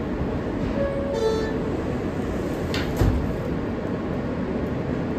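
Inside a New York City subway car: a steady rumble of the train, a two-note descending door-closing chime about a second in, then the sliding doors shutting with a thud about three seconds in.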